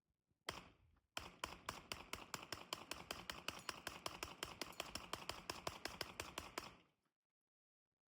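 Gunfire: a single shot, then a long rapid string of about two dozen shots at roughly five a second that stops suddenly, heard faintly.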